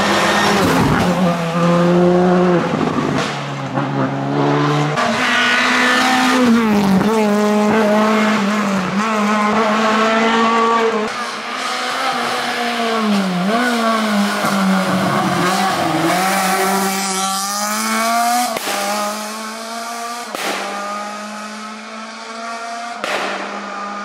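Rally car engines revving hard on a tarmac stage, several cars in turn: each engine climbs in pitch, drops sharply at the gear changes and braking, then climbs again.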